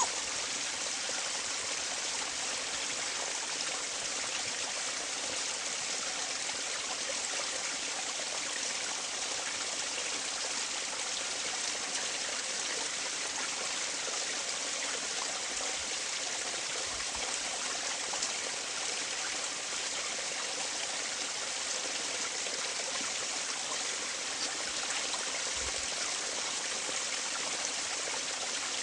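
Steady flowing water of a forest stream.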